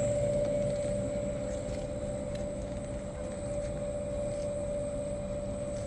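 Industrial quilt and blanket washing machine running, with a steady mechanical hum over a low rumble that eases slightly in level over the first couple of seconds and then holds.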